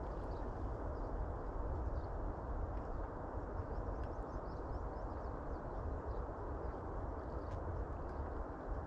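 Steady noise of wind and sea with a fluctuating low rumble, and faint, short high chirps scattered through it.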